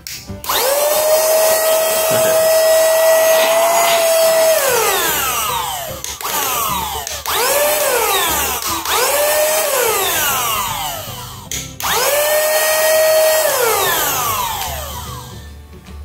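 Portable cordless handheld vacuum cleaner's motor switched on and off four times: a run of about four seconds, two short bursts, then another run of about three seconds. Each run is a loud whine that climbs quickly when it starts and winds down in pitch when it is switched off.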